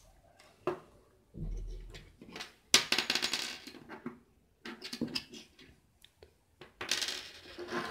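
Small hard objects clicking and clattering as they are handled, with two bursts of rapid ticking, one about three seconds in and one near the end.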